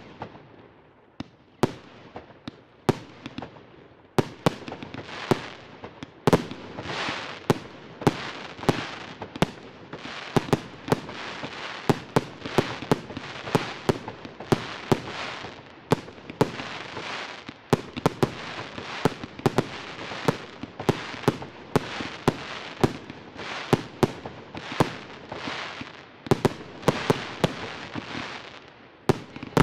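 Fireworks display: aerial shells bursting in a rapid run of sharp bangs, with a steady wash of noise between them. The bangs are sparse for the first few seconds, then come thick and fast for the rest.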